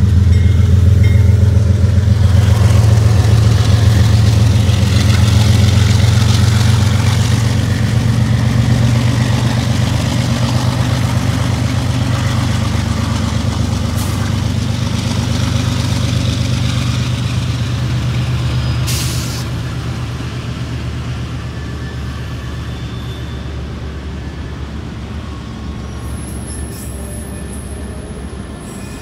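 CSX GE diesel freight locomotives rumbling as they pass close and pull away, the low engine drone slowly fading, with autorack cars rolling by. A short hiss comes about two-thirds of the way through.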